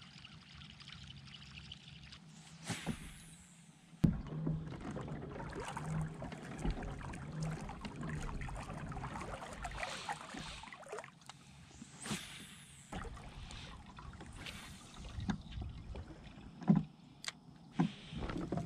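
Fishing kayak moving through calm water: water swishes and laps along the plastic hull, with a sharp knock about four seconds in and a few more knocks and clicks of gear near the end.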